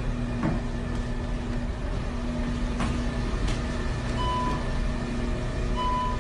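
Steady low hum of a self-checkout counter's conveyor belt running, with two short high electronic beeps from the checkout, one about four seconds in and one near the end.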